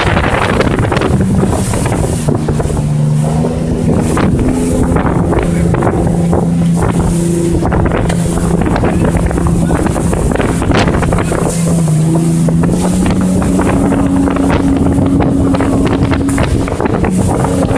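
Boat engine running steadily, its note shifting in pitch now and then, with wind buffeting the microphone and rough sea water rushing along the hull.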